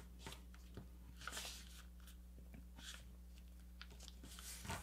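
Faint rustling and scraping of a sheet of paper as it is handled and creased into a paper airplane wing, in a few short separate bursts over a low steady hum.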